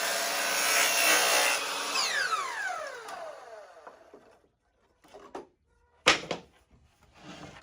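Power saw cutting wood panel stock, then switched off, its motor and blade winding down in a falling whine about two seconds in. A few knocks of wood being handled follow, the sharpest about six seconds in.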